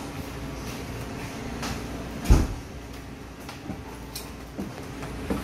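A single heavy thump about two seconds in, over a steady background hum, with a few light clicks around it.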